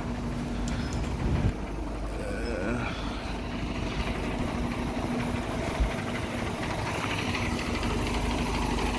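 Diesel engine of a parked flatbed crane truck idling steadily, a low rumble with a steady hum, with a brief thump about a second and a half in.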